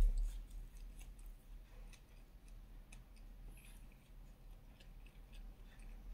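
Fingers handling soft food, folding a piece of dosa around fried banana slices: scattered faint clicks and soft squishes, with a low thump right at the start.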